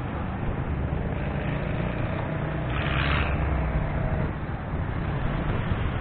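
Steady road and traffic noise heard from a vehicle moving along a busy highway: a low rumble of engines and tyres with wind on the microphone, and a short hiss about three seconds in.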